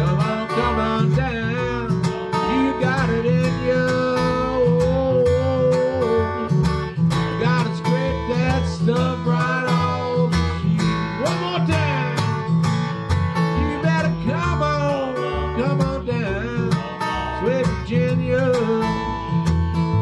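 Acoustic band playing an instrumental break: an acoustic guitar strumming, a washtub bass plucking the low notes, and a harmonica playing a lead melody with bent, wavering notes.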